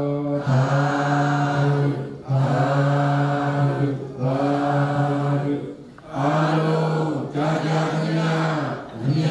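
A group of voices chanting Buddhist devotional verses in unison on one steady held pitch, in phrases of about two seconds with short pauses for breath between them.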